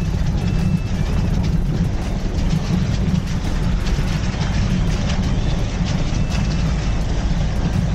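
A vehicle driving on a rough off-road mountain track: steady engine and road rumble, with frequent knocks and rattles from the uneven surface.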